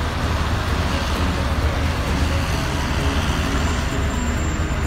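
Heavy earthmoving machinery's diesel engine running steadily: a constant low rumble with an even hiss above it.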